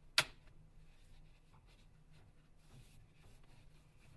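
Faint scratching and rubbing as the Nokia Lumia 1520's display assembly and unibody are worked apart by hand, with one sharp click just after the start.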